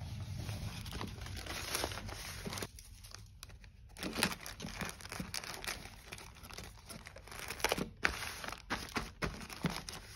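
Packaging being handled: a kraft paper bag rustling, then a thin plastic poly mailer crinkling as it is unfolded, with sharp crackles that come thicker in the second half.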